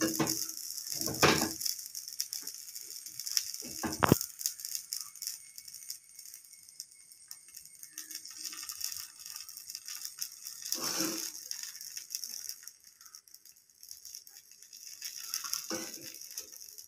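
Batter sizzling on a hot dosa griddle, a steady high hiss, while a metal spatula scrapes and clatters as noodle masala is spooned onto it. The clatters come several times in the first four seconds, again about eleven seconds in and near the end.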